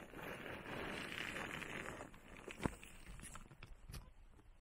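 Loose gravel crunching and scraping under a hiker sliding down a steep scree slope on his backside, steady for about two and a half seconds. Then comes one sharp knock and a few scattered stone clicks, and it cuts off suddenly near the end.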